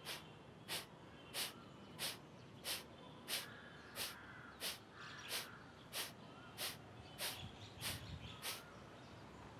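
Kapalbhati pranayama breathing: a steady run of short, forceful exhalations through the nose, about three every two seconds, fourteen in all, each puff driven by pulling the stomach in, with the inhalations passive and unheard between them.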